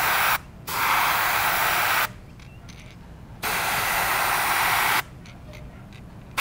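Airbrush spraying paint in hissing bursts, the air cutting on and off as the trigger is pressed and released: a brief spurt, then two sprays of about a second and a half each, stopping about a second before the end.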